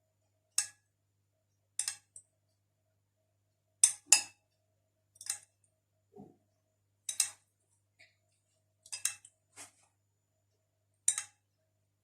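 Short, sharp clinks of a spoon against a dish, about a dozen at irregular intervals a second or two apart, as syrup is spooned over a hot cake; one duller knock near the middle.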